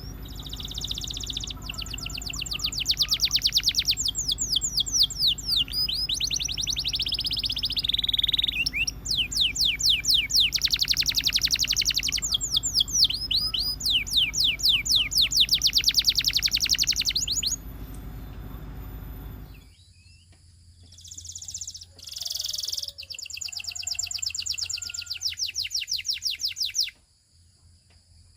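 Domestic canary singing: a long song of rapid trills, each a fast run of repeated high notes, changing from one trill to the next, with short pauses between phrases. A low hum lies under the song and stops about two-thirds of the way through.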